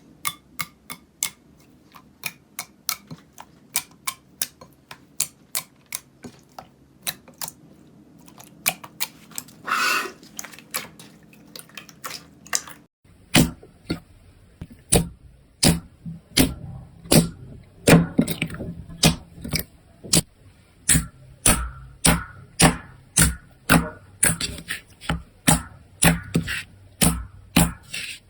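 Slime being pressed and poked, making a steady run of sharp clicks and pops about two a second. About halfway through the sound changes abruptly to louder, fuller pops.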